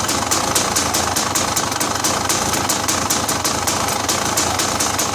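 Car engine idling steadily, its exhaust leak just resealed, with a light regular ticking at about seven ticks a second over the running.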